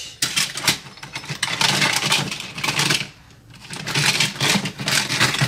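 Plastic toy trains clattering against one another as a hand rummages through a plastic storage bin full of them, with a short lull a little past halfway.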